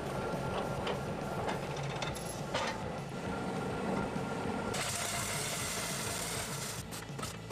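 Electric welding arc crackling and hissing as steel is welded, setting in a little past halfway through.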